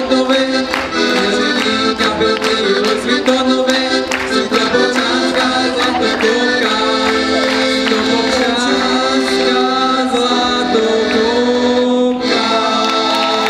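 Piano accordion playing a lively dance tune, with a sharp regular beat through the first half and a brief break in the music near the end.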